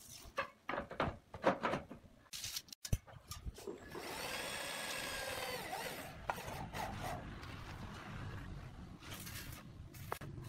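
Knocks and clatter of concrete roof tiles being handled, then about four seconds in an electric drill runs for around two seconds, driving a screw to fix a tile to the steel batten, with a lower steady hum carrying on after it.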